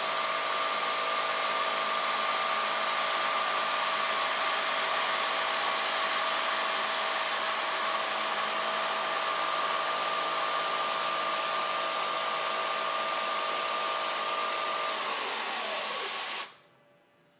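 CNC milling machine spindle running at a steady speed with the mist coolant hissing. Near the end the spindle winds down, its pitch falling, and then the mist coolant cuts off suddenly.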